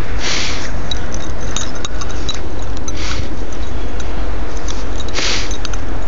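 Steady low rumble of wind buffeting the microphone. Three short hissing bursts come through it: about half a second in, around three seconds, and just after five seconds.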